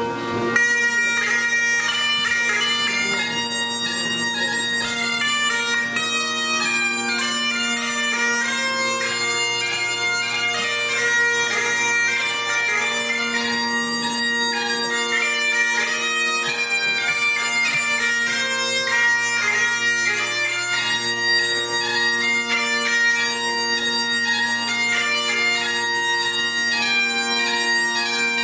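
Highland bagpipes playing a tune: the chanter's melody runs over the steady hum of the drones.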